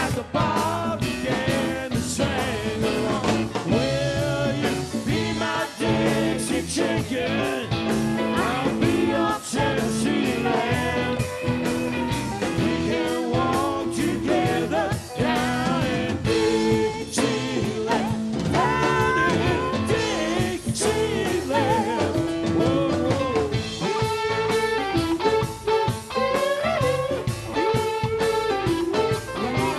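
Live rock band playing a blues-rock number: electric guitars, keyboards, bass and drums, with singing heard over the band.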